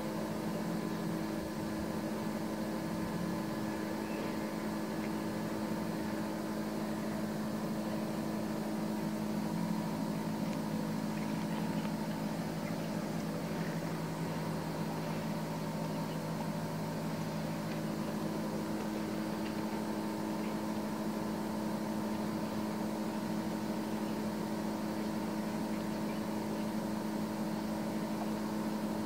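A steady machine hum holding several constant pitches, unchanging in level.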